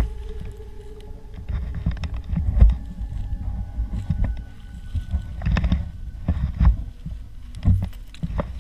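Uneven low rumbling and rustling on a head-mounted camera's microphone as the wearer shifts about, with a sharp click right at the start and smaller clicks scattered through.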